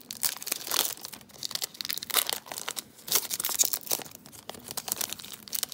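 Foil wrapper of a trading-card booster pack crinkling and tearing as it is ripped open by hand, in irregular crackly bursts.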